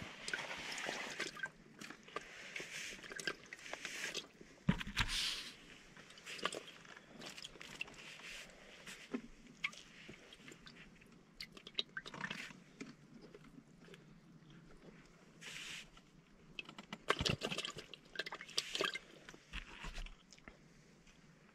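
Irregular rustling and handling noises from a person shifting about and handling gear, with scattered clicks and two louder knocks, one about 5 s in and one about 17 s in.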